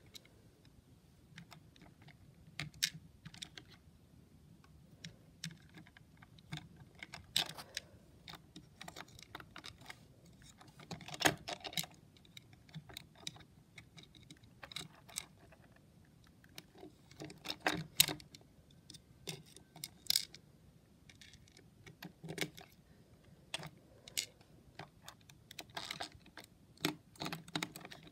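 Scattered clicks, taps and short scrapes of a small screwdriver working the screws and fingers handling the plastic chassis of a Hexbug BattleBot toy, at an uneven pace, a few sharper clicks standing out.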